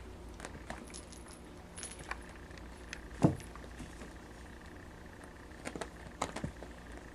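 Kittens playing on carpet: light metallic jingling and scattered small clicks, with one dull thump about three seconds in.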